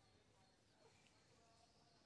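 Near silence: faint outdoor background.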